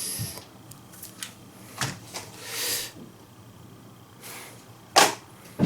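Handling noises: a few light clicks and a brief rub, then two sharp clicks, the first about five seconds in being the loudest and the second just before the end.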